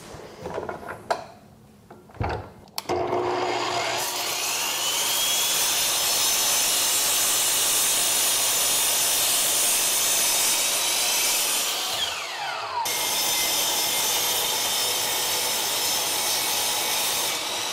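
Sliding compound miter saw cutting angled red oak leg pieces. A few knocks come first as the saw is set. About three seconds in the motor starts with a climbing whine and runs through a cut. Near the middle it winds down with a falling whine and is started again at once for a second cut, which winds down near the end.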